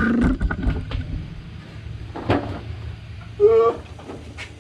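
Metal mower-deck parts being handled and fitted: a cluster of clunks and rattles, then a single sharp knock. About three and a half seconds in there is a short high squeak.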